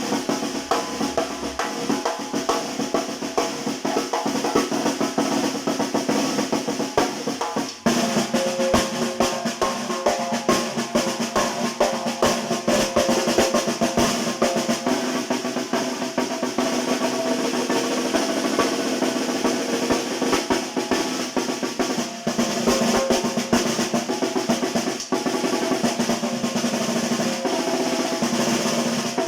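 Snare drum (tarola) played continuously with fast rolls and rhythmic patterns, broken by a brief pause just before the eighth second.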